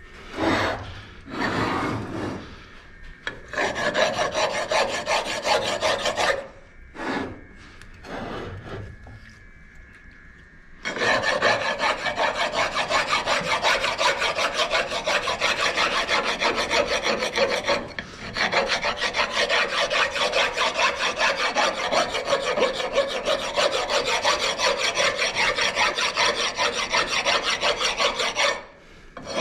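Stone rasp filing the edges of a small wet gray lithographic limestone, rapid scraping back-and-forth strokes that take the sharp edges and corners down. A few short bursts of strokes at first, a lull about ten seconds in, then steady rasping with one brief break.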